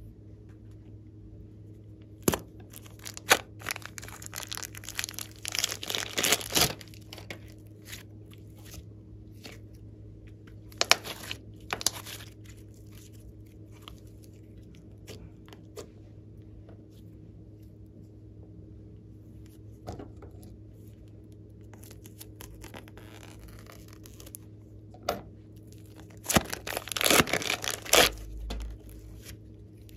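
Hands stretching and squeezing slime, with sticky crackling and the crinkle of a clear plastic piping bag being squeezed and peeled. The sound comes in bursts, the longest near the start and near the end, with quieter stretches between.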